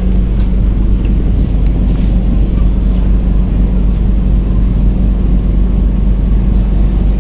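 Ro-ro ferry KMP Dharma Badra's diesel engines running under way: a steady low rumble with a constant hum.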